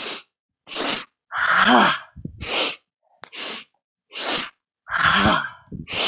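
A woman doing breath-of-joy breathing: three quick, sharp inhales in a row, then one long voiced 'haa' exhale as she flops forward. The cycle runs twice.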